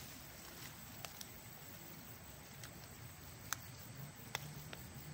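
Faint outdoor background hiss with a few light, sharp clicks or taps scattered through it, the loudest about three and a half seconds in.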